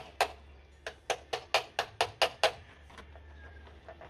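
Screwdriver knocking on a radiator fan blade's hub: a single knock, then eight quick sharp knocks at about four a second that stop after about two and a half seconds. The blade is being tapped loose from the fan motor shaft, where rust has stuck it.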